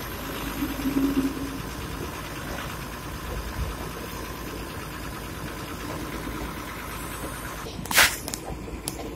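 Engine of a railway track-laying machine idling steadily. A short, sharp thump sounds about eight seconds in.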